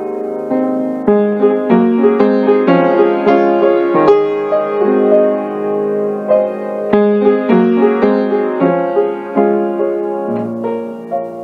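Piano music: a melody of struck notes over held lower notes, played at an even, unhurried pace.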